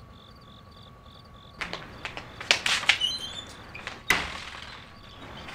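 Crickets chirping at a steady pulse, broken by a few clicks and knocks about a second and a half in and one sharp bang just after four seconds as a wooden door is unbolted and opened.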